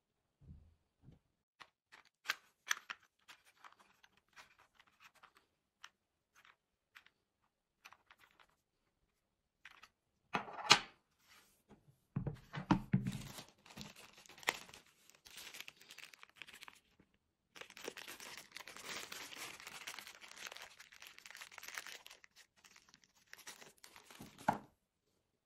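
Handling noises: scattered light clicks and knocks, one sharp knock about ten seconds in, then several seconds of rustling like crinkling or tearing material.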